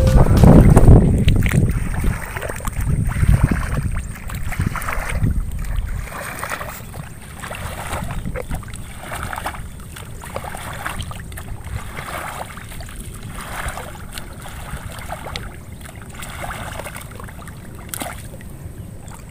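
Wind buffeting the microphone for the first few seconds, then rhythmic sloshing of water and wet mud about once a second as the muddy paddy field is worked by hand into rice seedbeds.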